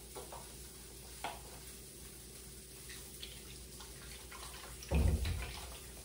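Liquid egg whites poured from a carton into a stainless steel mixing bowl, a loud splashing pour that starts about five seconds in, after a few light clicks of the carton being opened.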